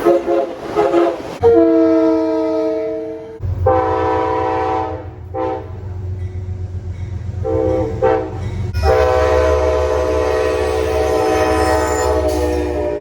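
Locomotive air horns sounding a run of blasts of different lengths, the chord changing abruptly between them as clips are cut together. The run ends in one long blast of about four seconds over the low rumble of the locomotive.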